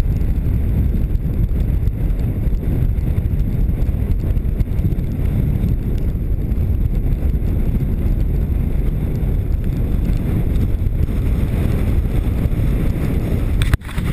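Loud, steady rush of airflow buffeting a helmet camera's microphone during a fast speed-riding flight. The noise breaks off for a moment near the end.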